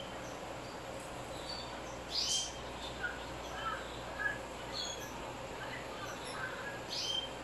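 A bird chirping: short high calls about every two and a half seconds, with fainter chirps between them, over a steady low hum.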